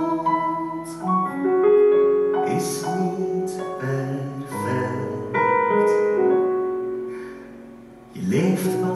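Live stage musical accompaniment led by piano, playing sustained chords and held notes between sung lines. It fades down about seven seconds in, then comes back in loudly near the end.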